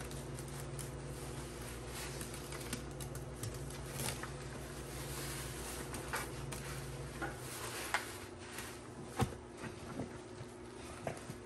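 Soaked grout sponge being squeezed and pressed by a gloved hand in a tub of thick foamy cleaning paste: wet squelching and crackling foam, with several sharp wet pops in the second half. A low background hum cuts off about seven seconds in.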